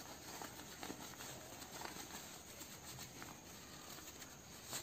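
Faint rustling and soft scratching of fabric being bunched and pulled by hand as a sewn fabric tube is turned right side out, in a scattering of small ticks.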